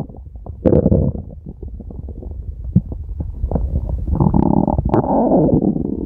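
Stomach growling: gurgling rumbles with small pops and bubbles, a louder gurgle just under a second in, then a longer groaning growl from about four seconds in that fades near the end.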